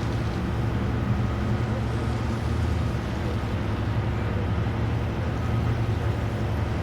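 A steady low engine drone that runs evenly without change.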